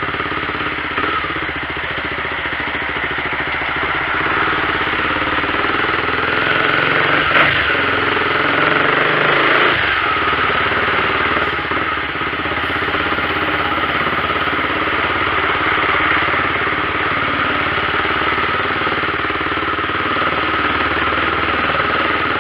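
Mercedes-Benz 1113 truck's six-cylinder diesel engine running loud and rough at low speed in stop-and-go traffic, a steady roar that holds an even level.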